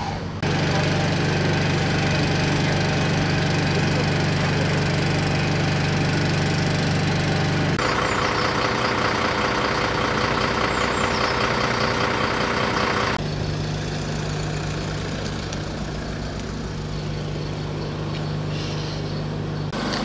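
Engines idling, in three spliced stretches: a steady low hum, then a busier, higher-pitched stretch of running machinery about eight seconds in, then a steady low hum again.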